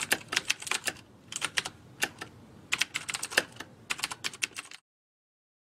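Keyboard-typing sound effect: a rapid, irregular run of key clicks that stops abruptly about five seconds in.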